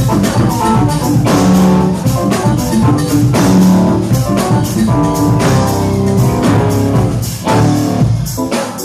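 Jazz-fusion band playing live, with electric guitar and drum kit over sustained bass notes.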